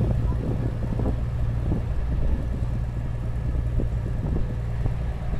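Farm tractor engine running steadily at slow parade speed, heard from aboard as a constant low drone.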